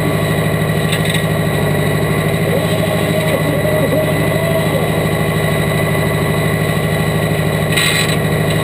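Diesel engine of a pulling tractor idling steadily, heard from the driver's seat. There is a brief hiss near the end.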